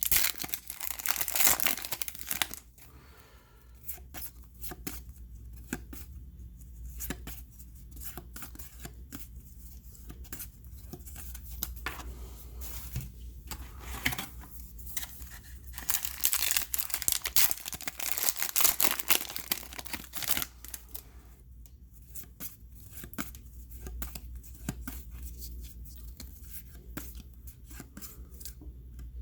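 Trading card pack wrappers being torn open and crinkled, in two louder stretches, one at the start and one in the middle, with quieter handling of cards between.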